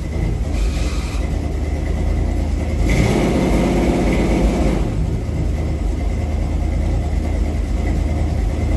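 1968 Dodge D100 pickup's engine running at idle, with a brief louder stretch of higher engine speed from about three seconds in that settles back near five seconds.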